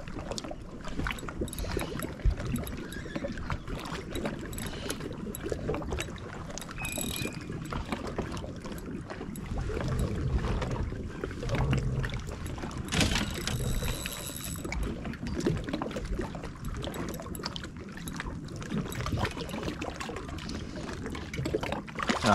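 Water lapping against a fishing kayak's hull, with small knocks and clicks of rods and reel being handled. About 13 seconds in, a brief high whir lasts a second or two.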